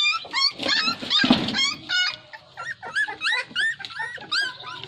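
Puppies whining and yelping: a rapid series of short, high-pitched cries, each rising and falling, several a second, with a brief rough noise about a second in.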